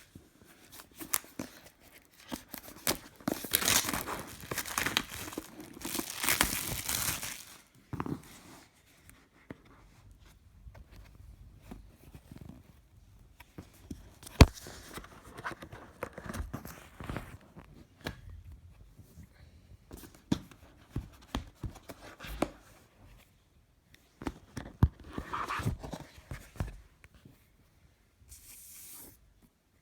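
Plastic shrink-wrap being torn and crinkled off an iPad Mini 4 box, loudest a few seconds in. Scattered rustles and knocks of the box being handled follow, with one sharp click about halfway through.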